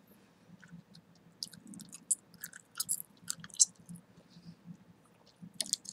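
Gum chewing close to the microphone: wet, sticky mouth smacks and clicks. They come in a quick cluster from about a second and a half in to nearly four seconds, then a few more near the end.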